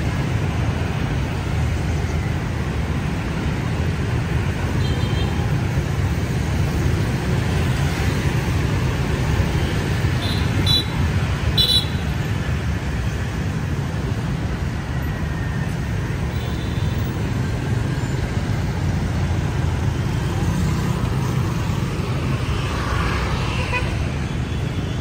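Steady rumble of dense street traffic, mostly motorbikes and scooters passing. There are four short horn beeps, two of them close together about halfway through.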